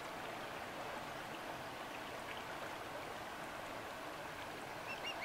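A steady, even hiss of outdoor background noise. Near the end, a bird calls in a quick series of short, high chirps.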